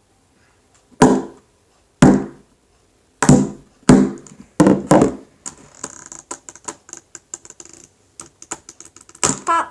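Small hammer knocking on plastic Rubik's cube pieces: six sharp knocks with a short ring, roughly one a second, then a quick patter of small plastic clicks and a louder knock near the end.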